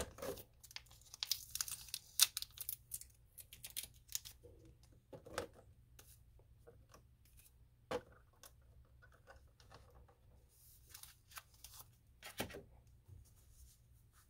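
Foil booster-pack wrappers crinkling and tape tearing as taped-down packs are pulled out of a clear plastic tray. The rustle is faint and scattered, densest in the first few seconds, with a few single clicks and knocks of the plastic later on.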